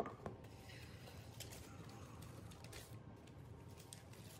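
Cardboard gift box and tissue paper being handled: a soft knock at the start as the lid comes off, then faint, scattered rustles and light ticks as the tissue paper is lifted.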